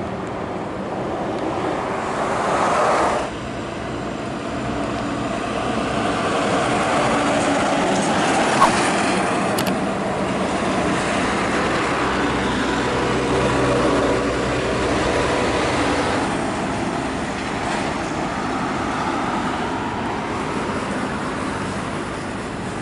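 Loaded heavy diesel trucks passing on a highway: engines running under a steady wash of tyre and road noise. The sound changes abruptly about three seconds in, and there is a short click a little after a third of the way through.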